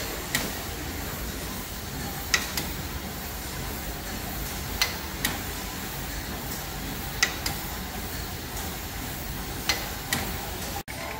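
Corliss steam engine of a York ammonia refrigeration compressor running slowly. Its valve gear clicks in pairs about every two and a half seconds over a steady hiss.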